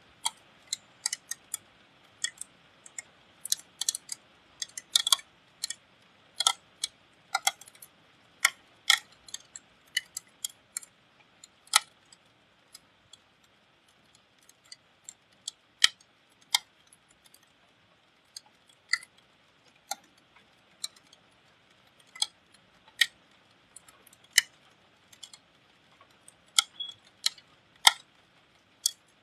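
Irregular sharp ticks of raindrops dripping onto the metal casing of a window air conditioner, from one to several a second and uneven in strength, over a faint steady hiss of rain.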